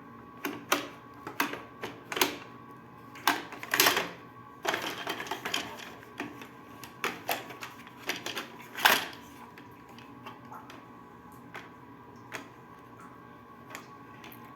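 Irregular mechanical clicks and clacks from a WMF 900S automatic coffee machine being tried out, with a short hissing rush about five seconds in and the loudest knock near nine seconds. The clicks thin out to a few faint ticks near the end, over a faint steady hum.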